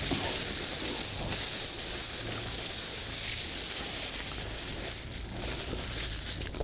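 A steady high hiss with faint rustling and clicks from a plastic bag and a plastic bait tub being handled.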